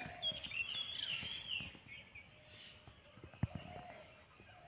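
Small birds chirping and twittering, with a short high call repeating every half second or so. A single sharp click about three and a half seconds in.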